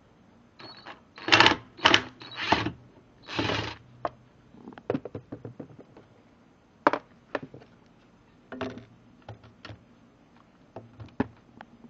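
Chicago Electric cordless impact driver backing screws out of a metal table frame, running in four short bursts in the first few seconds. Scattered sharp metallic clicks follow.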